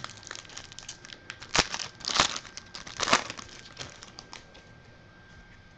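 Foil wrapper of a football trading-card pack crinkling and tearing as it is opened, in three short rustles about one and a half, two and three seconds in, with light clicks of cards being handled.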